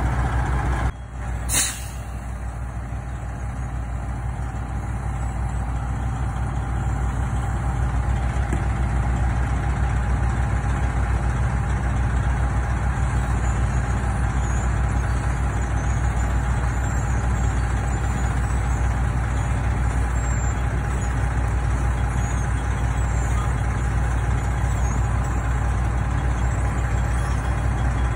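Heavy diesel engines running steadily at an asphalt paving job: a LeeBoy 8510C asphalt paver laying asphalt, with a dump truck working alongside. There is a short break and a sharp click about a second and a half in, then a steady low drone.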